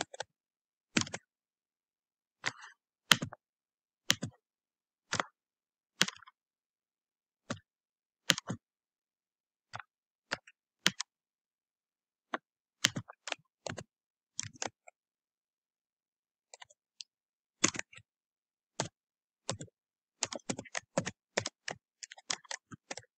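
Computer keyboard typing: single sharp keystroke clicks about a second apart, then a quicker run of keys near the end.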